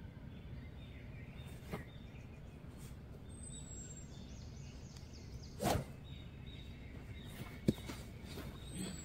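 A golf driver swished through the air in a practice swing, heard once just past the middle. About two seconds later comes a single short sharp click, over quiet outdoor ambience.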